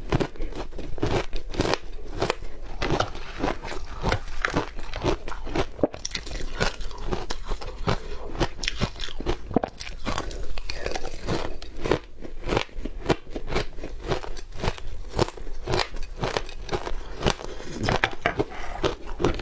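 Close-miked biting and chewing of crunchy yellow powdery snow: a continuous run of dense, irregular crunches, several a second.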